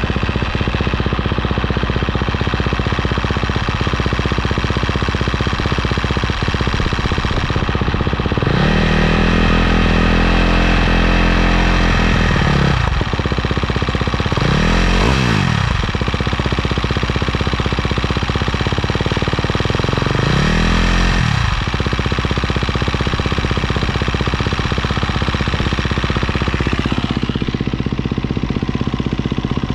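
2023 Husqvarna FC250's single-cylinder four-stroke engine idling through a Yoshimura RS-12 exhaust with its spark arrestor fitted. It is revved and held for about four seconds, then blipped quickly twice, falling back to idle each time.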